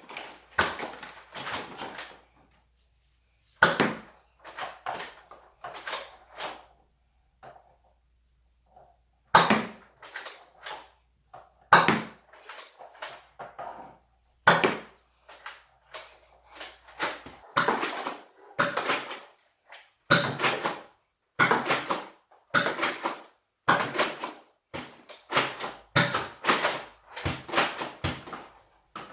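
Toy foam-dart blasters being fired and reloaded, with darts hitting and bouncing off kitchen cupboards and surfaces: a string of irregular sharp clacks and thuds that comes thicker in the last several seconds.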